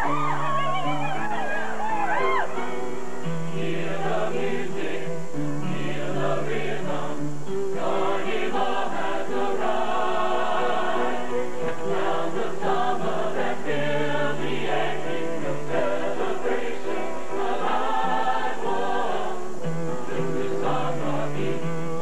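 Mixed-voice show choir singing in harmony with instrumental accompaniment, long held bass notes sounding under the voices in stretches of a few seconds.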